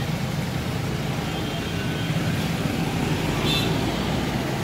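Steady engine rumble and road noise of a slow-moving convoy of cars, with a brief high-pitched note about three and a half seconds in.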